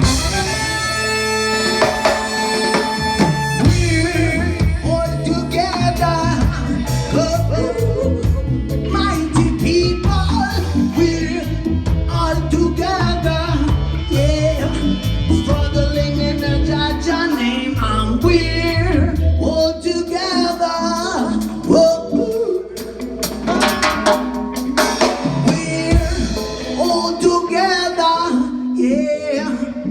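Live reggae band playing, with a singing voice over drums and bass.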